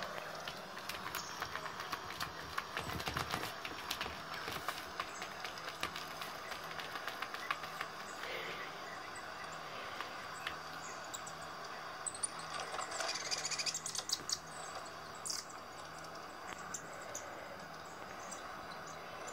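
Small birds chirping from a cat-entertainment video through a tablet's small speaker, with frequent light clicks and taps as a cat's paw strikes the tablet screen. A run of brighter, high chirps comes about two-thirds of the way through.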